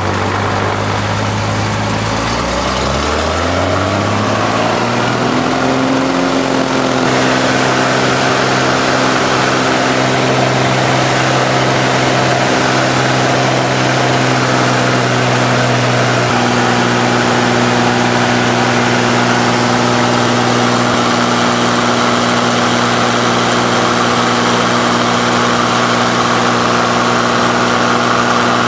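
Single-engine light aircraft's piston engine and propeller, heard from inside the cabin. The engine's pitch rises over a few seconds as power comes up, then holds steady and loud.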